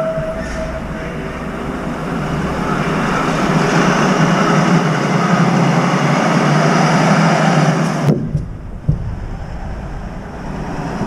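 Steady rumble and hiss of road traffic, building over several seconds and then dropping off abruptly about eight seconds in. After that come a few light knocks and rustles as a crow lands on the metal balcony railing.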